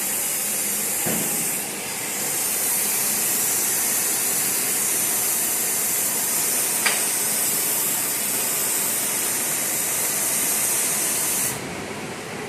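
MP1530 CNC plasma cutter's arc hissing steadily as it cuts steel sheet, dipping briefly about two seconds in, with one sharp click around the middle. The hiss cuts off abruptly about a second before the end, as the arc goes out.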